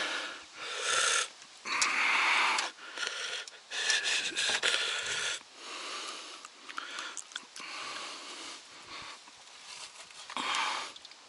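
A dog sniffing and snorting in short, irregular bursts, the strongest in the first half and one more near the end.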